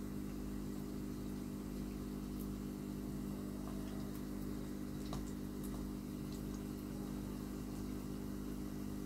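A small motor running with a steady low hum, with a faint click about five seconds in.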